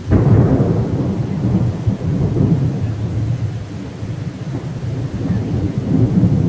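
Thunder during a heavy rainstorm: a sudden clap right at the start that rolls on as a long, low rumble, over the steady hiss of rain.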